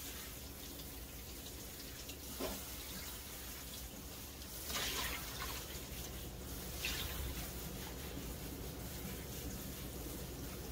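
Kitchen tap running steadily into a stainless steel sink as handfuls of leafy greens are rinsed under the stream, with a few brief louder splashes as the leaves are moved through the water.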